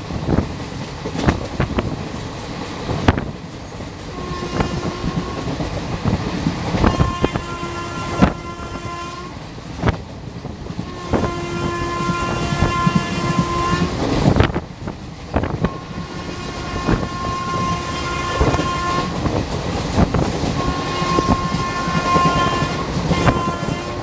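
A WAM4 electric locomotive's horn sounding five long blasts, one after another, as the express runs at speed, heard from a coach behind it. Under the horn, the wheels clack rhythmically over the rail joints and the run makes a steady rushing noise.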